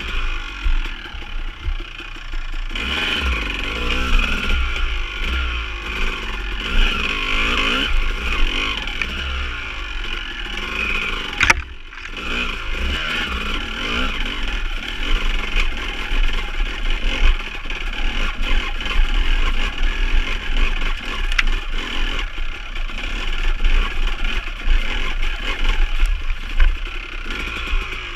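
Dirt bike engine running and revving up and down in pitch as the bike is ridden over wet rocks and mud, with clattering and scraping. A sharp knock near the middle and a lighter one later.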